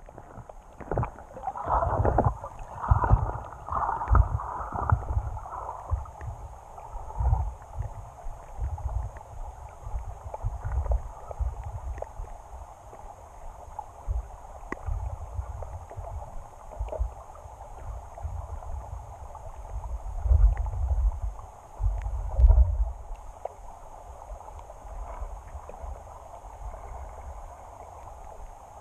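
Creek water heard underwater through a camera's waterproof housing resting on the stream bed: a muffled low rumble with scattered knocks. It is busier in the first few seconds and again about twenty seconds in.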